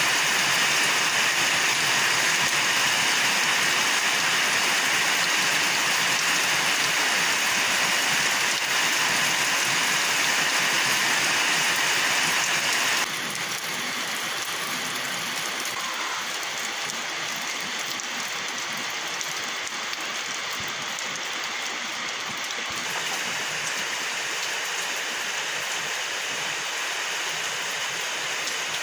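Steady rain falling, an even hiss; about 13 seconds in it drops suddenly to a quieter level.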